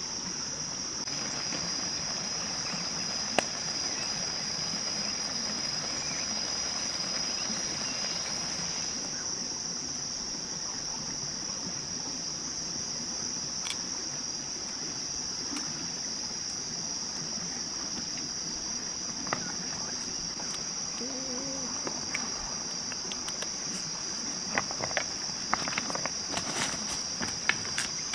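Insects chirring in a steady high-pitched drone. A few sharp clicks come near the end.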